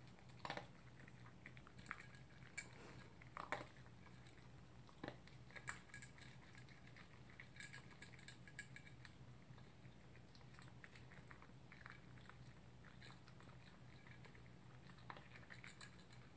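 Toy poodle eating from its bowl: faint chewing and crunching in short, irregular clicks, busiest in the first half and again near the end.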